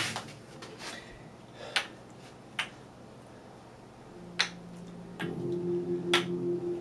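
Sharp wooden clacks of a kendama's ball landing on the cups and spike, several single strikes a second or two apart. Background music comes in louder near the end.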